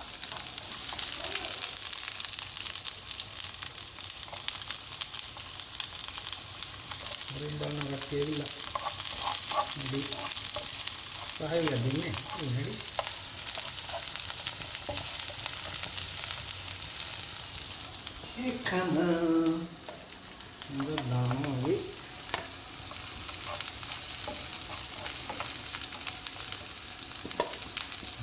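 Sliced red onions sizzling as they fry in oil in a non-stick frying pan, stirred with a spatula. A voice sounds briefly a few times, loudest about two-thirds of the way through.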